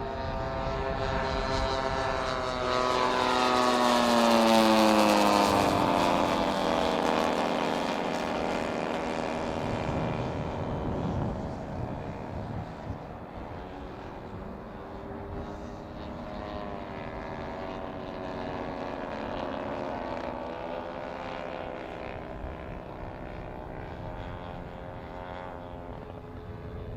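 Radio-controlled scale Grumman F8F Bearcat warbird models flying past, their engines and propellers loudest about four seconds in, the note dropping in pitch as they pass. The engine drone then runs on more steadily and quieter, farther off.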